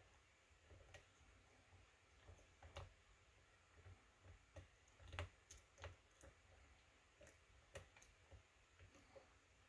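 Faint, irregular clicks and ticks of a lock pick working the pins inside a pin-tumbler lock cylinder, about a dozen small strikes scattered unevenly.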